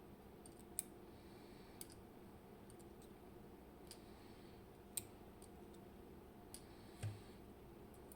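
A few light, sharp clicks of small lock parts and tools being handled while a Robur safe deposit lock is taken apart, with a duller knock about 7 seconds in.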